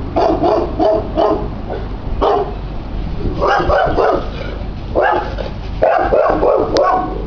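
Dogs barking in repeated volleys of short barks, with brief gaps between the volleys.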